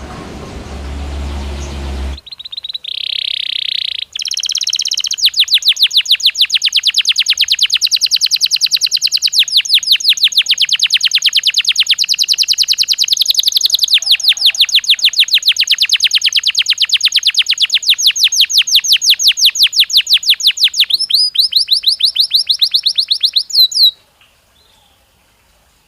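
Belgian canary singing. A low hum cuts off about two seconds in, and the bird gives a short harsh note, then a long fast trill of many repeated high notes a second that runs for about fifteen seconds. Near the end it switches to a different trill and stops abruptly.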